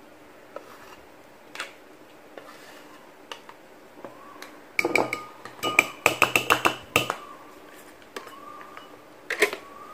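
Plastic measuring spoons knocking and scraping against a small ceramic bowl and each other while cocoa powder is scooped: scattered light clicks, then a quick run of about eight clicks around the middle, and one more near the end.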